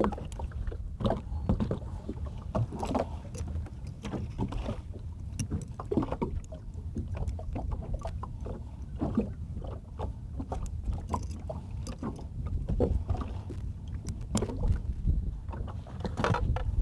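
Small boat on choppy water: a steady low rumble of wind and water against the hull, with scattered light knocks and clicks from hands and pliers working at the gunwale.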